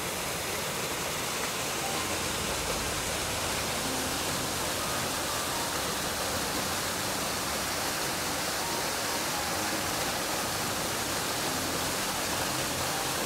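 Steady rushing of a small waterfall, creek water pouring over rocks and fallen logs.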